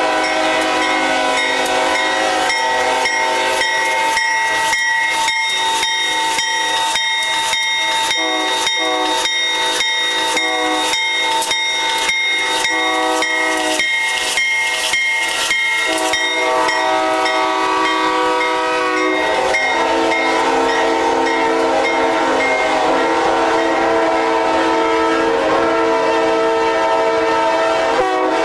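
Several locomotive air horns sound together in overlapping chords. From about four seconds in they pulse in short blasts about twice a second, and from about sixteen seconds in they hold long, unbroken chords.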